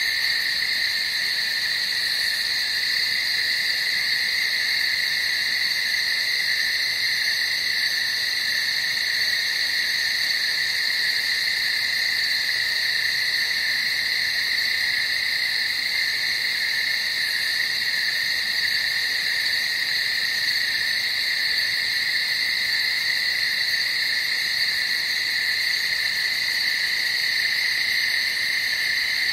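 Night-time chorus of many small calling animals, a steady, unbroken high-pitched sound.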